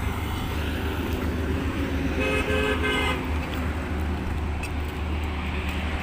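Steady rumble of highway traffic going past, with a vehicle horn sounding for about a second a little over two seconds in.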